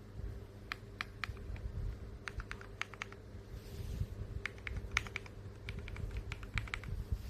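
Mechanical keyboard switches being typed on: short irregular key clicks, several a second, over a faint low steady hum.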